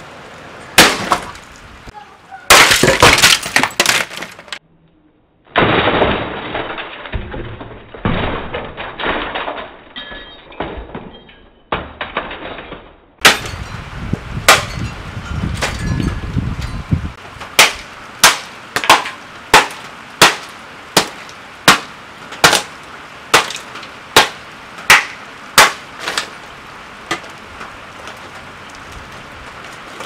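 A plastic Lasko box fan being smashed with a metal pole: plastic cracking and breaking in clusters of blows, then a long run of sharp, regular strikes about one and a half a second.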